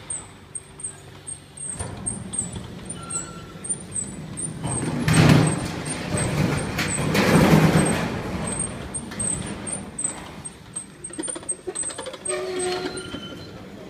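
Telescopic camera mast retracting, with two loud rushing swells about five and seven and a half seconds in, over a fast high ticking.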